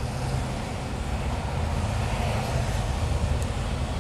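Steady low rumble of a lorry's diesel engine and road noise, heard inside the cab while moving slowly in traffic on a wet motorway.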